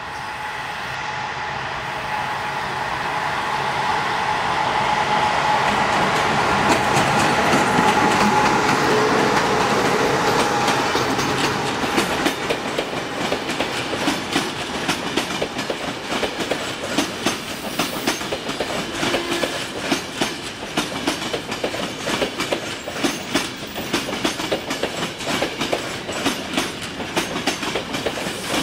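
A CFR Class 41 electric locomotive hauling a passenger train passes close by. Its rumble carries a steady tone and grows to its loudest about eight seconds in. Then the coaches roll past with a continuous clickety-clack of wheels over the rail joints.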